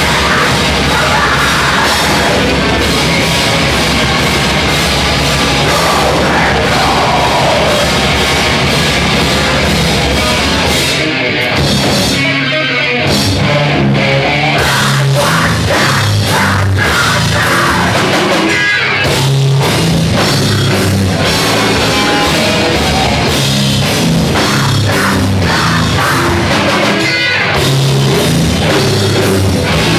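Loud heavy rock music with drum kit, distorted guitars and bass; the band thins briefly about a third of the way in, then comes back in full.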